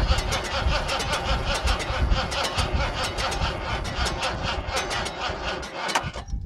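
Ford 5.0-litre fuel-injected V8 cranking over on its starter with an even, rapid beat, not catching, then cutting off abruptly near the end. The engine cranks but won't fire: the injectors are getting no pulse, which the owner takes for the computer not turning on or not firing them.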